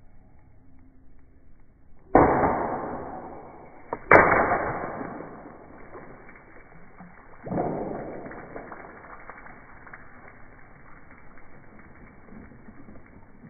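Air rifle firing and its pellet bursting a water-filled balloon, the water splashing onto concrete: three sudden bangs, each trailing off over a second or more, the middle one the loudest and sharpest.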